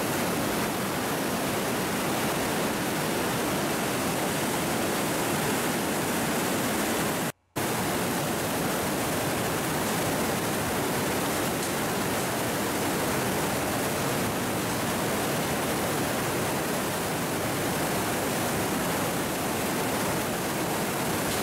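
Whitewater glacial river rushing over boulders in a narrow rock gorge: a steady, even roar. It cuts out for a moment about a third of the way through.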